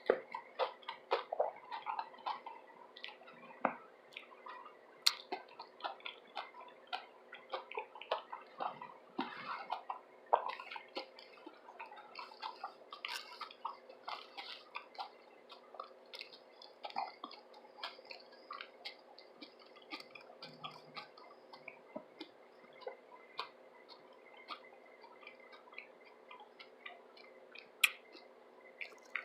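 Close-miked chewing of a tuna sub sandwich: soft, wet mouth clicks and smacks at irregular intervals. They come thick in the first half and thin out to scattered clicks later.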